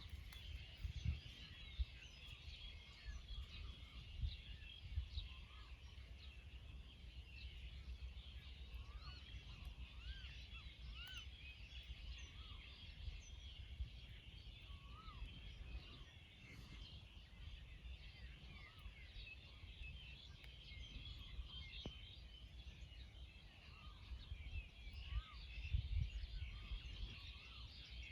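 Many small birds chirping and calling over an open rice field, a dense unbroken chatter of high chirps with short rising-and-falling calls scattered through it. Low, uneven gusts of wind buffet the microphone, strongest about a second in and a few seconds before the end.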